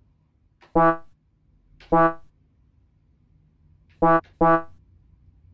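Electronic keyboard struck by a rooster pecking at its keys, sounding the same note four times: two single notes about a second apart, then a quick pair about four seconds in, each dying away within half a second.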